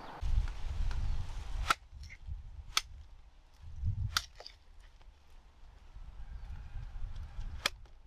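Knife blade chopping into sugarcane stalks: four sharp cracks, one to three seconds apart, over a low rumble that is strongest at the start and again about four seconds in.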